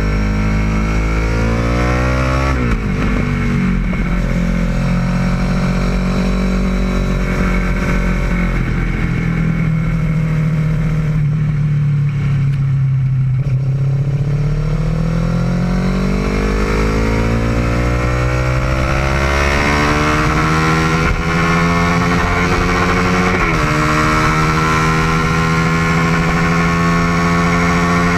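Kawasaki ER-6n motorcycle's parallel-twin engine running loudly. The revs sink slowly in the middle, then climb and hold high, with a short break in the note about two and a half seconds in and again near the end.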